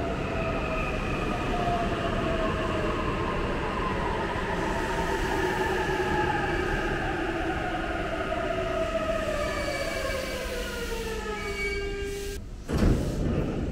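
JR East E531 series electric train pulling into a station. Its motors whine in several tones that fall steadily in pitch as it brakes to a stop, over the rumble of the running gear. Near the end there is a sudden loud burst of noise.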